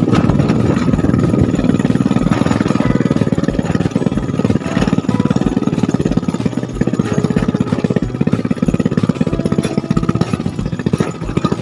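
Motorcycle engine running with a fast, even chugging pulse.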